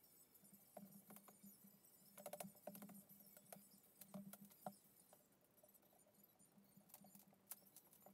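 Near silence, with faint scattered taps and clicks from a crowbar prying out old wooden window framing. The taps cluster about two to three seconds in and again around four seconds in.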